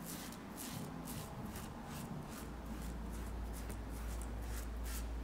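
Supply SE single-edge safety razor scraping through lathered beard stubble in a rapid run of short strokes.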